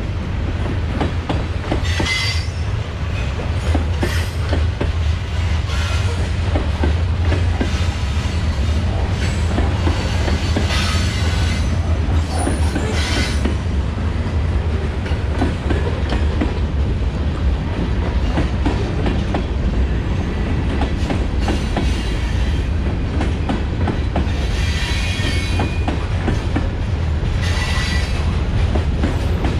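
Freight train cars rolling past: a steady rumble of steel wheels on the rail, dense with clicks over the joints, and a brief high wheel squeal several times.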